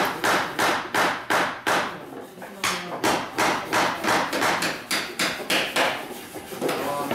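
Hammer blows on wood, a steady run of sharp knocks about three a second, with a short lull about two seconds in, as carpenters fit timber joints by hand.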